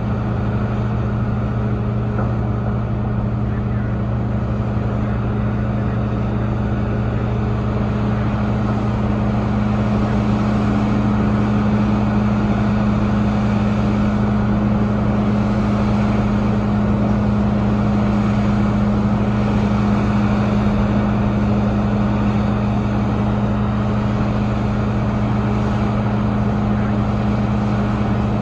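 Diesel engine of a Caterpillar 6015 hydraulic mining excavator running steadily under load with a constant deep drone, getting slightly louder about ten seconds in.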